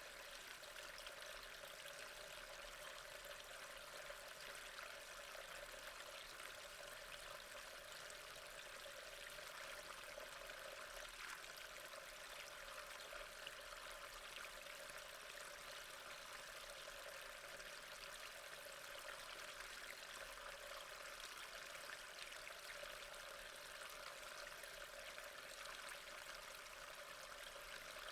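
Waterfall: water falling and splashing in a steady, unbroken rush, fairly faint.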